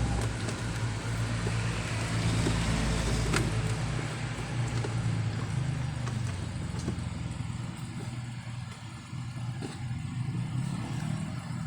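An engine running steadily with a low hum, its noise slowly fading over the stretch, with a few small clicks over it.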